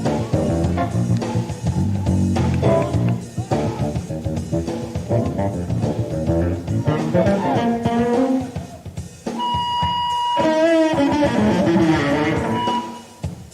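Electric bass solo: quick runs of plucked notes, then from about two-thirds of the way through, high ringing tones held for about a second each.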